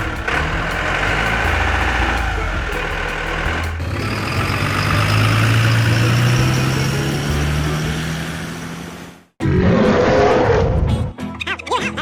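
Truck engine running with a low drone whose pitch climbs slowly over several seconds, then cuts off abruptly about nine seconds in. A short, loud burst of different engine noise follows.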